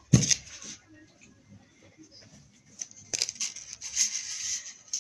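Handling noise from hands working on a fondant cake: one sharp knock just after the start, then faint scattered taps and rustling, with a few clicks about three seconds in.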